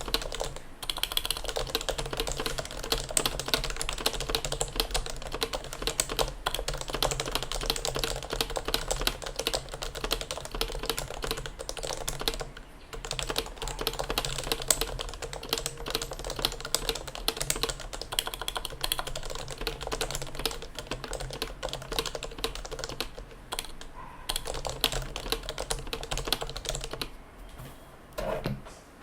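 Continuous fast typing on a Sho SRX custom keyboard with Realforce Topre internals: unsilenced, lubed RF101u housings and sliders on a stainless steel plate, under RF101u keycaps. The keystrokes come rapidly and irregularly, with a brief pause about halfway and a lull near the end.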